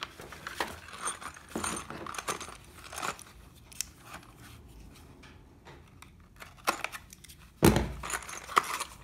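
Unboxing handling: paper and plastic packaging rustling and crinkling, with small metal clinks of loose parts, and one louder thump about three-quarters of the way through.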